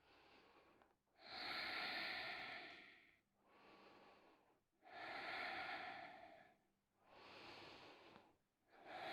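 A woman's slow, deep breathing close to the microphone as she holds a yoga side stretch: three louder breaths about three and a half seconds apart, each followed by a softer one.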